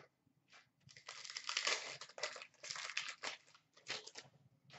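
Hockey card pack's foil wrapper being torn open and crinkled by hand: an irregular run of rustling and crackling from about a second in until near the end.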